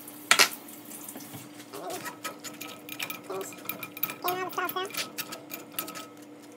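Metal spoon scraping and tapping against a fine-mesh wire strainer as thick chile sauce is pressed through it into a pot. A sharp clink about half a second in, then a run of small scrapes and clicks.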